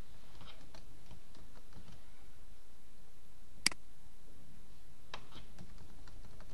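Computer mouse clicking over a steady low room hum: a few faint clicks, one sharp louder click about three and a half seconds in, then a couple more clicks a little later.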